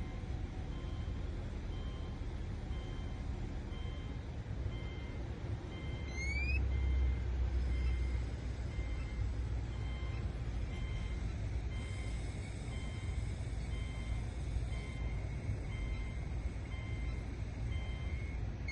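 A car engine idling, with a steady repeated electronic beep over it, most likely the car's warning chime. About six seconds in there is a short rising chirp and the engine rumble briefly grows louder.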